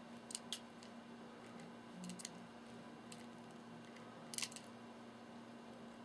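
Budgerigar bathing in a shallow dish of water: a few faint, sharp splashes and clicks, the loudest cluster about four and a half seconds in.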